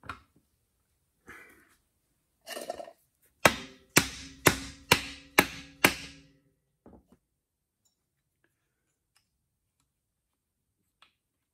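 Six sharp taps about half a second apart, each with a short metallic ring, as the second-gear brake band piston is driven into its bore in a VW 010 automatic transmission case. Some light handling of parts comes before them.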